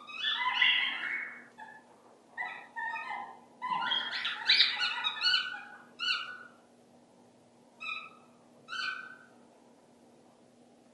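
Dog giving a run of high-pitched whines and yelps: about six separate cries with pauses between them, the longer ones early and the last two short.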